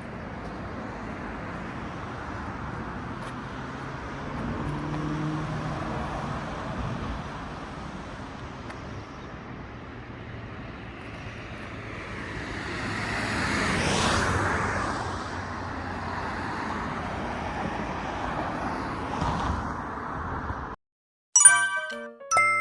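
Steady outdoor background rush with a road vehicle passing by, swelling and fading away about 14 seconds in. Near the end the sound cuts off and chiming music starts.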